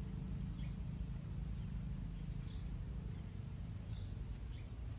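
Outdoor background: a steady low rumble with faint, short, falling high-pitched chirps repeating about every half second to a second.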